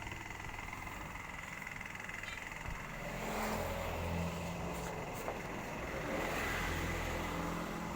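Motor vehicle engine passing on the road, the low engine note swelling from about three seconds in and staying up.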